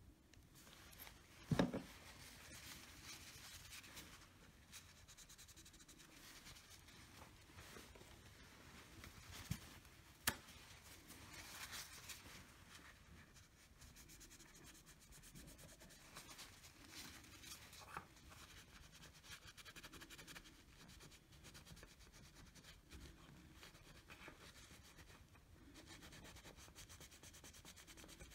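Faint rubbing and scraping while cleaning old thermal paste and adhesive off a freshly delidded CPU, with a sharp knock about a second and a half in and two short clicks around ten seconds in.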